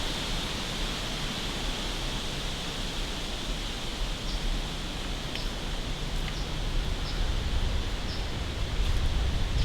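Steady outdoor background hiss with a low rumble, and a faint short high chirp about once a second from about four seconds in.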